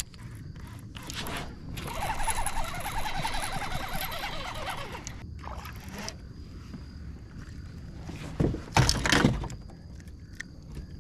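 Fishing reel being cranked in with a steady whirring retrieve, then water splashing near the end as a fish is swung out of the water.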